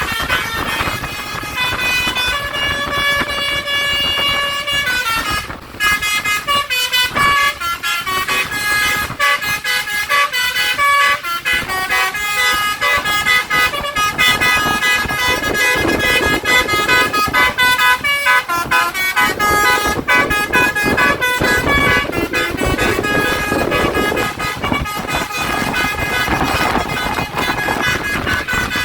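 Telolet basuri horn on a tour bus playing quick stepped melodies, one short note after another, with a brief break about five seconds in.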